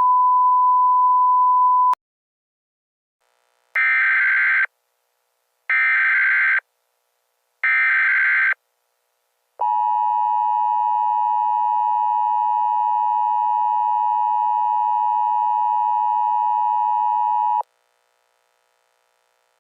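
Emergency Alert System tones: a steady high beep for about two seconds, then three short buzzy bursts of the SAME data header, then the harsh two-note EAS attention signal held for about eight seconds before cutting off suddenly. These tones open an emergency alert broadcast.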